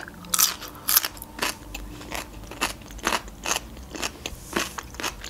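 Fresh cucumber stick being bitten and chewed close to the microphone. There is a run of crisp, wet crunches, roughly two a second, that are loudest in the first second and a half and then get softer as the chewing goes on.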